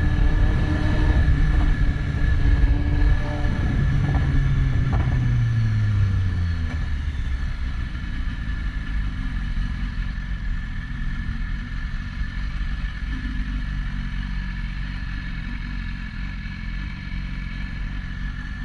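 BMW S1000RR's inline-four engine slowing down, its pitch falling about four to six seconds in, then running low and steady.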